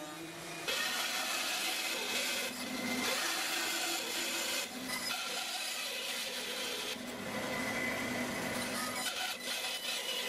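Woodworking machines cutting timber: a table-mounted router shaping the end of a door rail, then a bandsaw cutting a board. Steady cutting noise with a few short breaks.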